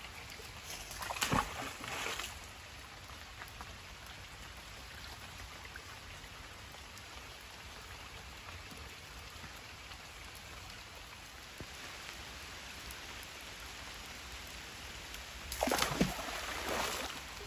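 A search magnet on a rope splashing into a duckweed-covered boggy canal about a second in, and again, louder, near the end. Light rain falls between the splashes.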